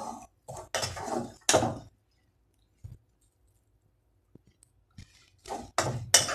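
Metal spoon scraping cooked red spinach stir-fry out of a metal pan onto a plate: three quick scrapes in the first two seconds, a pause with a few faint clicks, then a run of scraping and clinking again near the end.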